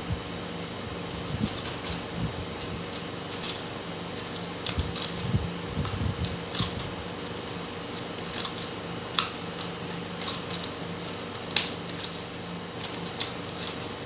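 A thin clear plastic bottle being handled and wrapped with adhesive tape: irregular crinkles, clicks and taps of the plastic and the tape, over a steady faint hum.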